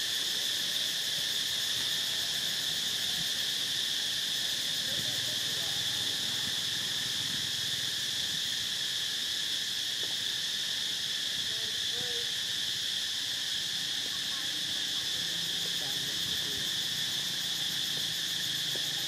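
Steady insect chorus, a continuous high-pitched drone that holds unchanged throughout.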